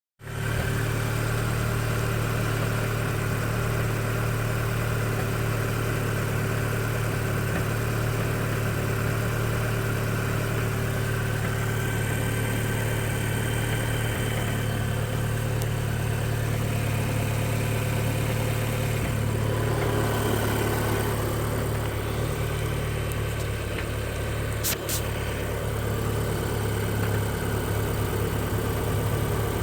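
Audi S3 8P's 2.0 TFSI turbocharged four-cylinder idling steadily on a cold start, the condition in which the owner reports a knocking noise. A short sharp click sounds once, late on.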